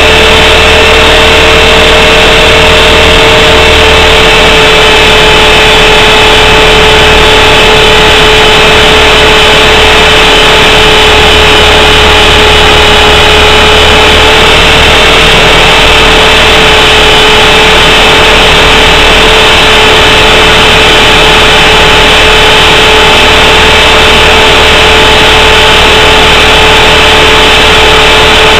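450-size RC helicopter's motor and rotor running, heard very loud from a camera mounted on the helicopter itself: a steady whine of several held tones over a dense rushing noise.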